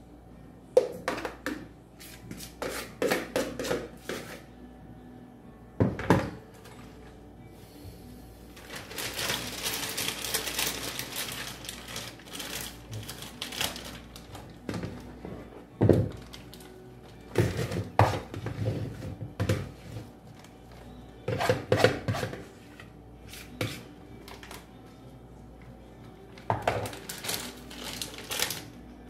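Faint background music with irregular clusters of knocks and clatter from handling on the work table, and a few seconds of hissing noise about nine seconds in.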